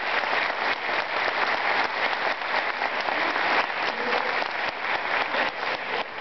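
Crowd applause: many people clapping steadily in a dense patter of hand claps.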